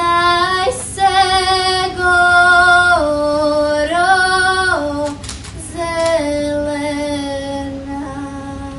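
A schoolgirl soloist singing a melody: a few short phrases broken by brief pauses, then one long held note that sinks slightly in pitch.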